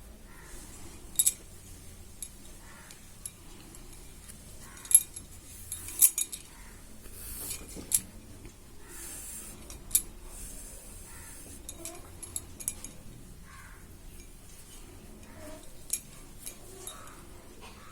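Cloth being handled, with soft rustling and scattered sharp clicks of small objects tapped or set down, a few of them louder near 1, 5, 6, 8 and 10 seconds in.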